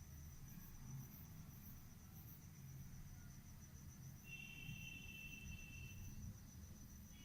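Near silence: low room hum with a faint, steady, evenly pulsing high-pitched tone, and a brief higher tone lasting about two seconds, starting about four seconds in.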